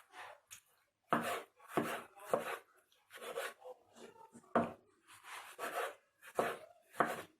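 Knife chopping peeled tomatoes into small pieces on a cutting board, in uneven strokes about once or twice a second.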